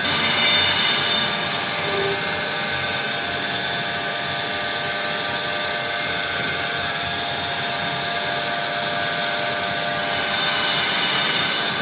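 Lathe running steadily, a constant machine whine with several fixed tones over a noisy hum.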